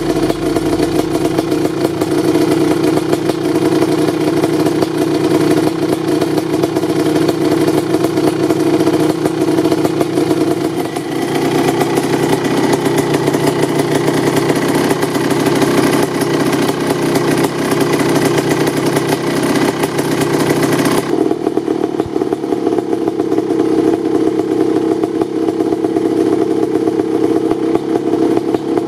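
1988 Kawasaki KX500's 500 cc single-cylinder two-stroke engine idling steadily through an FMF Fatty expansion chamber, with a fast, even pulsing from the exhaust. Its tone changes abruptly twice, about a third and two-thirds of the way through.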